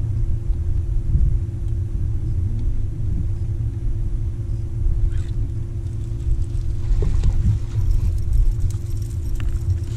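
Low, buffeting rumble of wind on the microphone with a steady electric hum from the bass boat's bow trolling motor.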